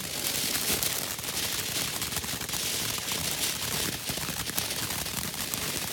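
Ground fountain firework hissing as it sprays sparks, with a dense run of small crackling pops.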